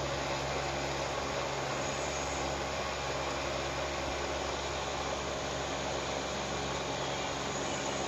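Steady machine hum under an even hiss, like a motor or fan running continuously, with no change in pitch or level.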